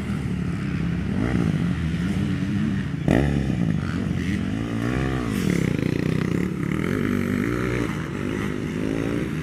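Motocross dirt bike engine revving hard as the bike passes close and rides off. The throttle snaps open with a sudden loud burst about three seconds in, then the engine note rises and falls several times as the rider works through the gears and a corner.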